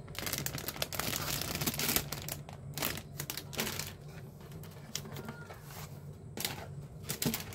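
Plastic bags around model-kit parts runners crinkling as they are handled, densest for the first two seconds. This is followed by scattered rustles and light clicks as the paper instruction sheet is lifted out of the cardboard box.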